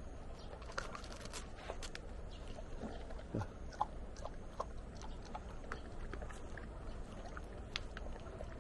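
Dogs taking and chewing small jerky treats: faint scattered clicks and soft taps on concrete, a few slightly louder about three to five seconds in, over a low steady rumble.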